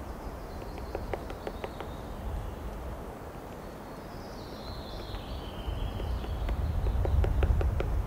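White-backed woodpecker working at its nest hole: quick runs of light taps and clicks against the bark, about a second in and again near the end. A faint thin high sound falls in pitch in the middle, under a low wind rumble that is loudest near the end.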